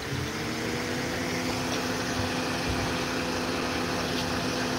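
A motor vehicle engine running with a steady hum at one fixed pitch. It comes in just after the start and holds unchanged.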